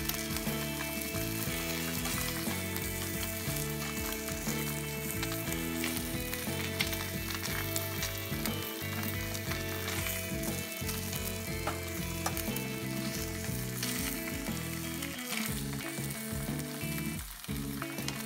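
Salmon skin sizzling and crackling in hot oil in a nonstick frying pan, while a paper towel held in chopsticks is rubbed across the pan to wipe out the excess oil.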